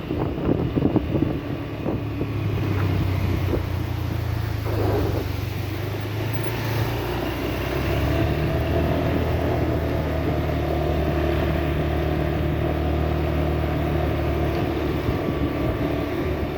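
Motorbike engine running steadily while riding, with wind noise on the microphone; the engine note shifts about halfway through.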